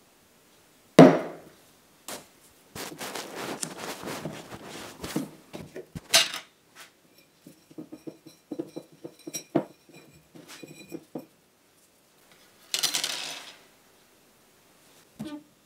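Glass jar handled on a table: a sharp knock about a second in, rustling and clinks, then a thin wire drawn out of the jar, ticking and scraping against the glass with a faint ring, and a last clank near the end.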